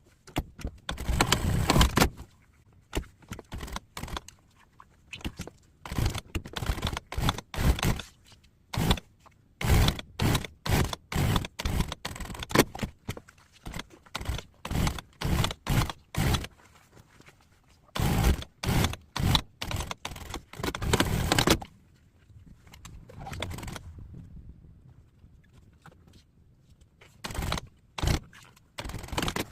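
Hand and tool noises of reupholstering an office chair: many short, sharp mechanical bursts in quick runs, with a quieter stretch near the end.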